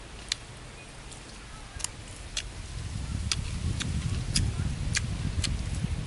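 Chewing grilled sausage with sharp, irregular mouth smacks. About three seconds in, a low rumble rises as the sausages are handled on a leaf in a basket.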